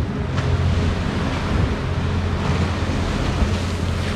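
Rough sea waves breaking and surging on a beach, a steady rushing wash, with wind buffeting the microphone in a low rumble.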